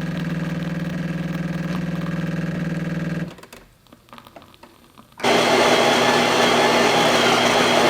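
Jura E8 super-automatic espresso machine making an espresso doppio: a steady machine hum for about three seconds, a short lull with faint clicks, then a louder, rougher whirr from about five seconds in, the sound of its built-in grinder milling beans.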